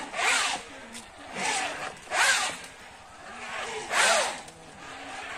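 Rope-and-pulley fish toy on a playground line being worked by hand: four rasping strokes, each with a squeak that slides in pitch.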